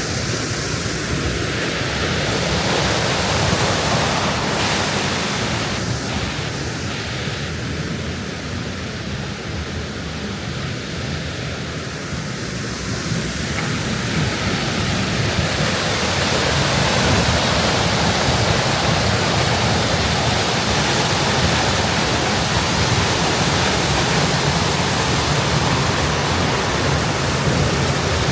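Steinsdalsfossen waterfall: a loud, steady rush of falling water that grows louder past the middle.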